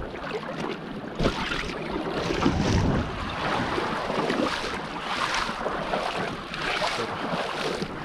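Sea water sloshing and splashing in irregular swishes, about one a second, with wind rumbling on the microphone.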